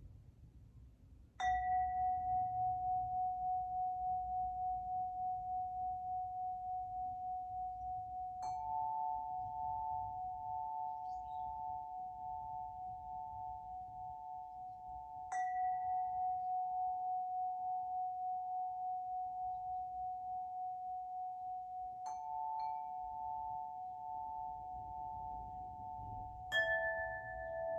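Tuned spring (wood element) wind chime struck five times, about every seven seconds. Each strike leaves clear, pure notes that ring on through the gaps with a slow wavering pulse, and the last strike brings in a lower note.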